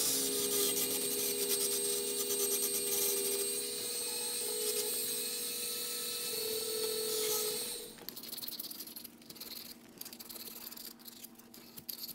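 Rotary grinder spinning a carbide burr against the edge of an aluminium intake, knocking off its casting lip: a steady whine with a gritty hiss. About eight seconds in the grinding stops, leaving light scraping and handling clicks.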